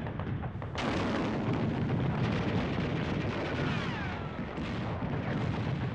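Battle sounds of rapid gunfire mixed with explosions, with a heavy blast about a second in and a few falling whistles near the middle.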